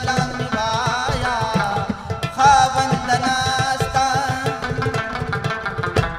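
A man singing a devotional folk song in a wavering, ornamented voice, accompanied by quick hand strokes on a clay pot drum, with one sharp stroke near the end.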